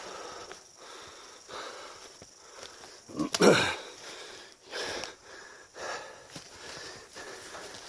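A man breathing hard and panting from the exertion of a steep climb, with rough breaths under a second apart and one loud, falling exhale about three and a half seconds in.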